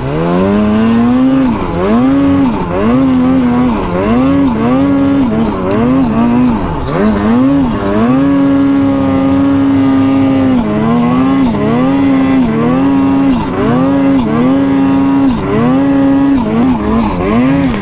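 Snowmobile engine revving up and down over and over, roughly once a second, as the sled is worked through deep snow, with one steady held rev for a couple of seconds about eight seconds in.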